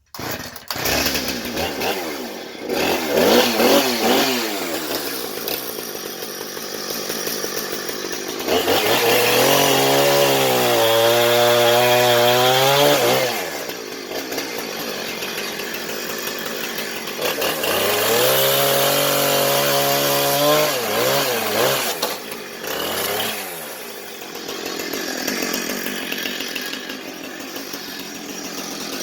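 Chainsaw running. It rises to full revs about nine seconds in and again about eighteen seconds in, and its pitch sags and recovers under load.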